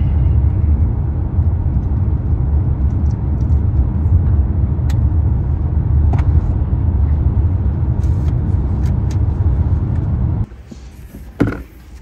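Steady low road rumble of a car driving at speed, heard from inside the cabin, with a few faint clicks. About ten and a half seconds in it cuts off to a much quieter background, with one sharp click shortly after.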